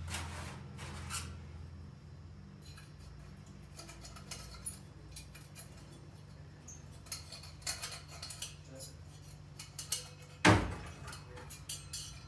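Small metal parts and hand tools clinking and tapping as a parking heater is worked on, over a steady low hum. One louder knock comes near the end.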